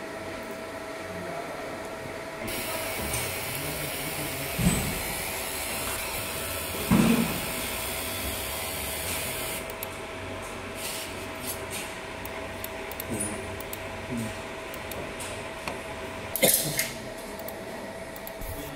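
Steady hum of a fiber laser marking machine. A hiss runs through the first half, with two knocks, and a run of light clicks follows in the second half.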